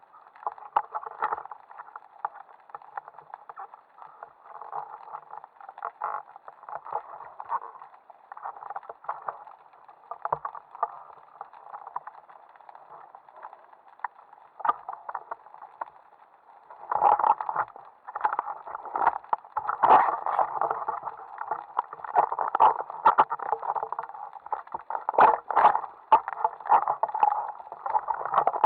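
Muffled underwater noise heard through a waterproof camera housing on a speargun: water movement with frequent knocks and scrapes as a speared octopus grapples with the gun. It grows louder and busier about two-thirds of the way in.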